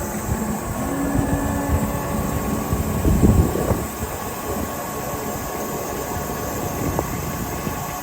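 Spindle moulder with a 4 kW electric motor running steadily, with a louder, rougher stretch about three seconds in.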